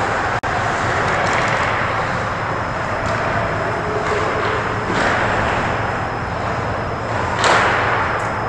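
Indoor ice-rink ambience during hockey play: a steady hiss and hum of the arena with echoing scrapes of skates on ice, the loudest scrape about seven and a half seconds in. The sound drops out for an instant just after the start.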